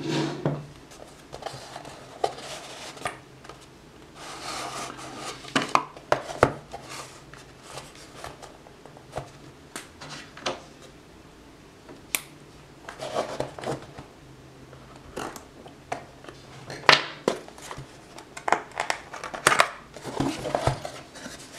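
Cardboard packaging being handled and opened: an inner kraft-card box slid out of its sleeve, set down and its tuck flap pulled open, making irregular scrapes, rubs and small sharp clicks.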